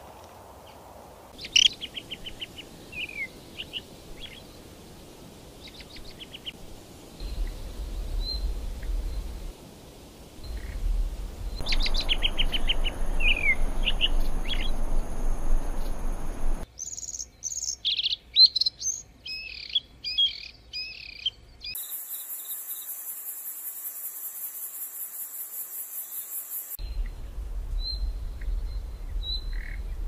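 Songbirds chirping and calling in short bursts and trills, changing in character from one edited segment to the next. Partway through, a stretch of high, rapid, evenly pulsing buzz takes over for about five seconds.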